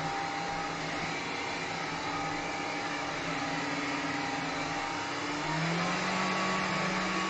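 Vax Glide cordless wet-and-dry hard-floor cleaner running steadily while it sucks up spilled water, a motor whir with a low hum. The hum grows stronger about five seconds in.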